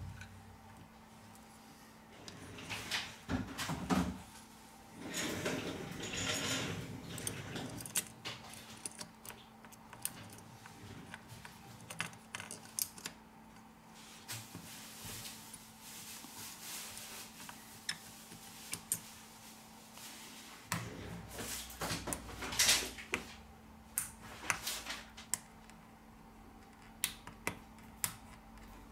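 Tweezers and small phone parts of a Xiaomi Redmi 6A clicking and tapping as they are handled and fitted back together, with a couple of longer stretches of rubbing and scraping.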